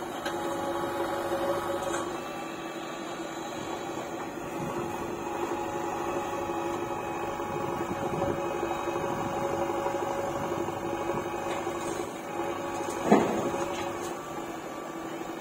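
JCB backhoe loader's diesel engine running steadily under hydraulic load as the backhoe arm digs and swings, a constant hum with a fixed whine. One sharp knock stands out about thirteen seconds in, as the bucket works over the dump truck.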